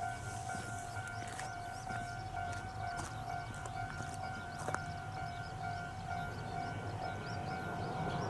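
Japanese railway level-crossing alarm ringing on and on with a steady tone and short regular breaks, warning of an approaching train. Small birds chirp faintly over it.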